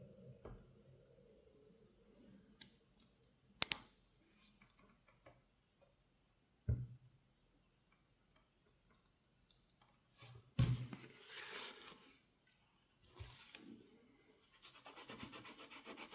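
Small plastic keyboard-switch parts being handled: scraping and rubbing, a few sharp clicks and snaps, and a quick run of small ticks near the end.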